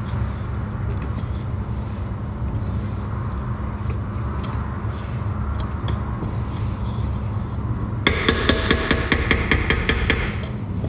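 Utensil stirring and scraping thick brownie batter in a stainless steel mixing bowl; about eight seconds in, a couple of seconds of fast, evenly spaced ringing taps of the utensil against the metal bowl.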